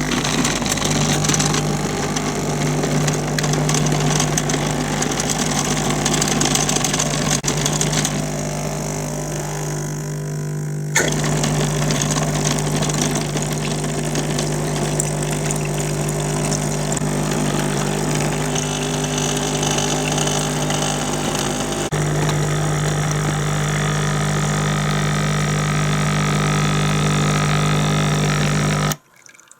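The BAR-14F espresso machine's electric pump running, with a steady low buzz under a loud hiss of water and steam. The hiss thins briefly, comes back suddenly about eleven seconds in, and the machine cuts off abruptly near the end.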